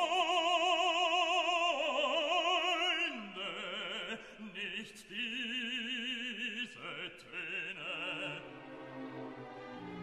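Background music: an operatic voice singing long held notes with wide vibrato over orchestral accompaniment, the pitch dropping about three seconds in.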